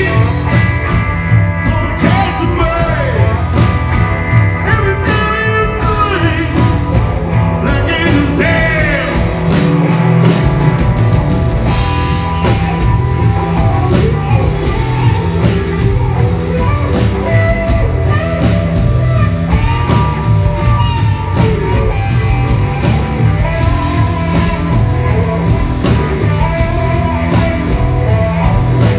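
A blues-rock band playing live: a man singing over acoustic guitar and electric bass, with regular strikes keeping a steady beat. The singing is most prominent in roughly the first ten seconds, then the instruments carry on alone.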